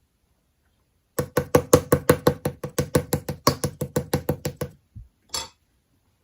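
A rapid, even run of about twenty sharp taps, roughly six a second, then a single low thump and a brief rustling scrape.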